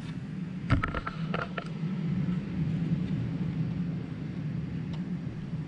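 Small clicks and taps from handling the display and its connector, clustered about a second in, over a steady low hum.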